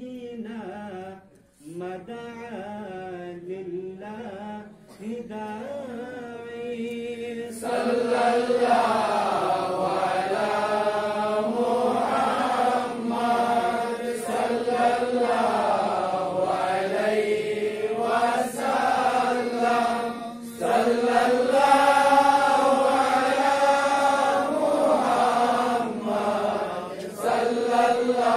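Men chanting an Islamic devotional song (naat), one voice leading into a microphone. About seven seconds in, the singing swells louder and fuller.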